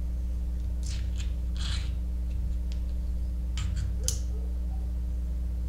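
A few faint clicks and short scrapes of small lock pins and tools being handled while the pin stacks are taken out of a padlock cylinder, over a steady low hum.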